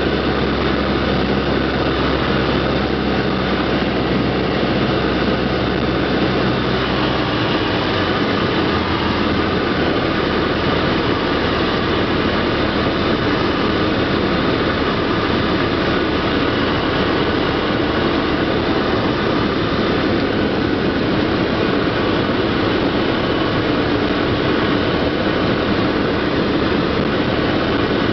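Cessna 152's four-cylinder Lycoming engine and propeller heard from inside the cockpit on final approach: a loud, steady drone with rushing air. The low engine tones drop away about seven seconds in, typical of power being pulled back for landing.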